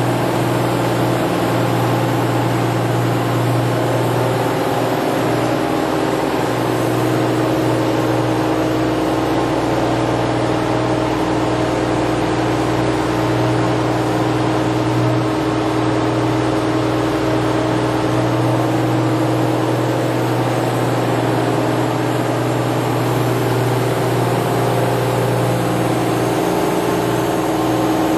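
Toshiba MPF-2114C bridge-type vertical machining center running under power: a steady mechanical hum with a constant low tone.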